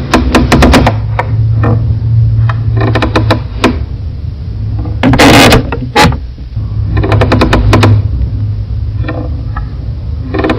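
Wooden floorboards creaking in several drawn-out, stuttering creaks made of rapid ticks, over heavy boosted bass. A harsher, louder creak comes about five seconds in.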